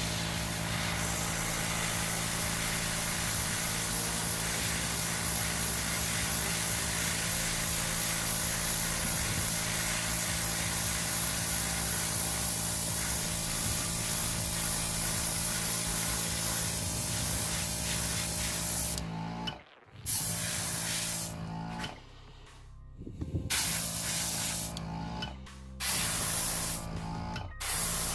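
Airbrush spraying clear coat: a steady hiss of air and paint over a steady hum. About two-thirds of the way through it turns into short bursts with brief silent gaps between them.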